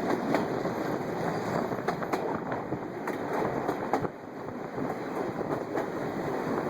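Railway train rolling on the track, its wheels and rails making a steady rumble with many irregular clicks and clatters.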